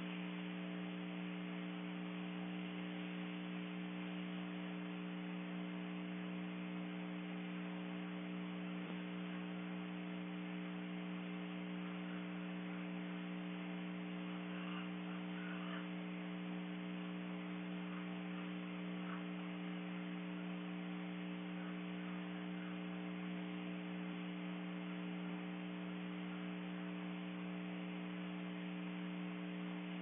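A steady, unchanging hum made of several low tones, like electrical mains hum or a running motor, over a faint hiss.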